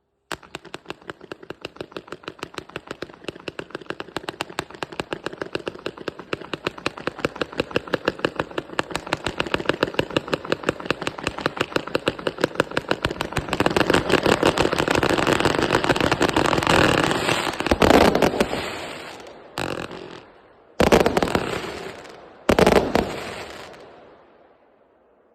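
A multi-shot firework cake of 0.8-inch tubes (a linked 396-shot set) firing shot after shot in a rapid, steady train, several a second. It grows louder and denser through the middle and then thins out. Near the end come two last loud volleys, each dying away.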